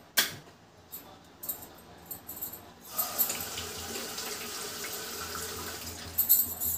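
Water running steadily for about three seconds, with a sharp click near the start and a cluster of knocks and clicks near the end.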